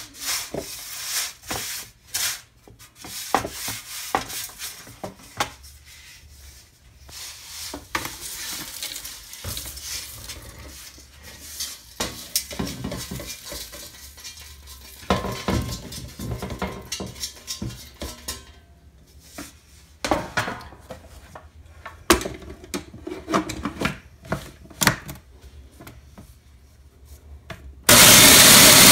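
Dry, baked eggshell pieces clattering and scraping as they are pushed off a metal baking sheet into the plastic bowl of a Black & Decker food processor, with irregular clicks and taps. Near the end the food processor's motor switches on loudly and steadily, beginning to grind the shells.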